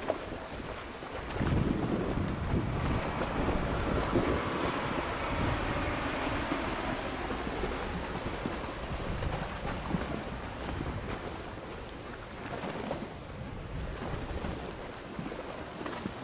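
Wind buffeting the microphone beside choppy water, with a steady high hiss above it. The wind noise swells about a second and a half in and eases off slowly.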